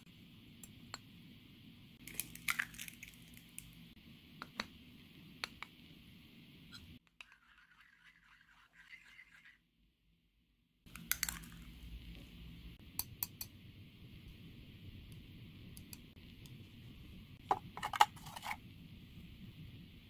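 A metal spoon clinking and scraping against a ceramic dish as dry almond flour and then egg batter are stirred. The clicks are scattered and irregular over a steady background hiss, the sound drops out for a few seconds in the middle, and a short cluster of louder clinks comes near the end.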